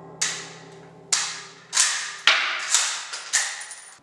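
Six gunshots echoing in an indoor shooting range. Each is a sharp crack with a short ringing tail, fired at uneven intervals of about half a second to a second.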